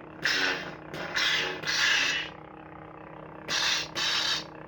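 CFX lightsaber sound board playing a steady hum through the hilt's small speaker, with five swing sounds as the saber is swung: three in quick succession, then a pause, then two more near the end.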